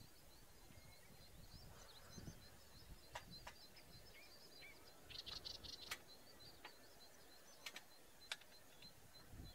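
Near silence with faint bird chirps: a string of high thin notes, a quick run of louder chirps about five seconds in, and a few short sharp clicks.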